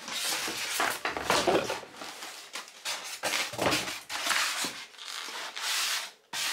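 A white foam packaging insert rubbing and scraping as it is handled and pulled from a box: a run of irregular scrapes and rustles.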